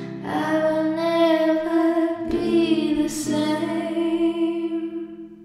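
Song ending: a woman singing long, held notes over acoustic accompaniment, fading out near the end.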